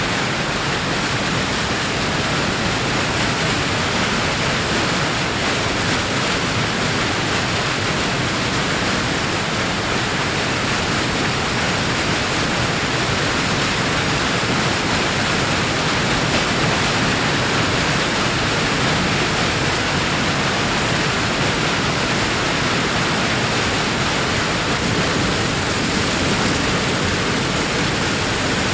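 Large waterfall: a steady, dense rush of falling water that does not change.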